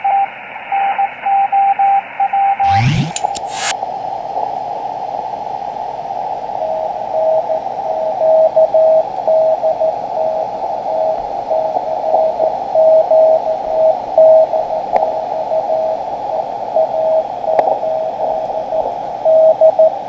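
Morse code (CW) received on the 40-metre band by a SunSDR2 DX software-defined radio and played through a laptop speaker: a single steady tone keyed on and off over receiver hiss. About three seconds in there is a brief burst of noise, and after it the hiss narrows and a slightly lower-pitched Morse signal keys on and off.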